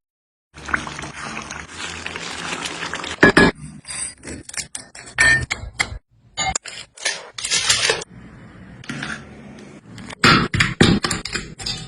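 Cooking sounds in short cuts. First comes a few seconds of steady hiss like sizzling, then a run of utensil scrapes, clinks and knocks against a pot or pan.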